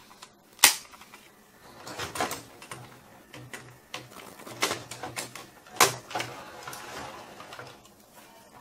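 Hard plastic toy robot parts clicking and clacking as they are handled and fitted together, a sharp click about half a second in and several more spread through.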